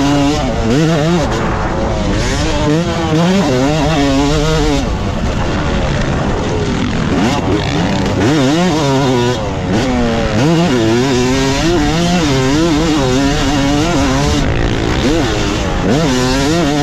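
Yamaha YZ250 two-stroke motocross bike engine being ridden, its pitch repeatedly rising and falling as the throttle is opened and closed.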